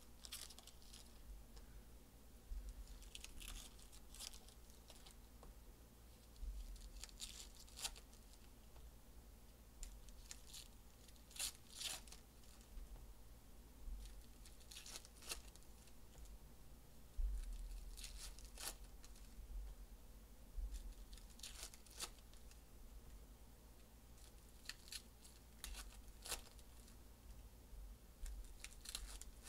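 Faint, scattered rustles and snaps as a stack of Panini Legacy football cards is handled and foil card packs are torn open and crinkled.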